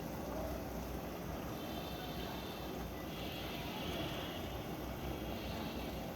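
Hisense front-load washing machine running a wash cycle: a steady low rumble with a hiss that comes and goes about every two seconds.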